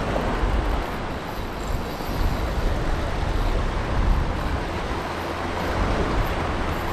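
Wind buffeting the microphone, a steady low rushing noise, over the wash of the sea.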